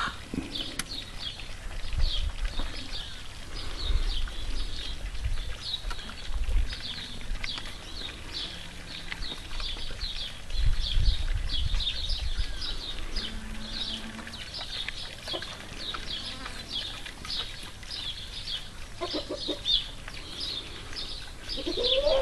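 Small birds chirping over and over, several short high chirps a second, with low rumbles on the microphone now and then.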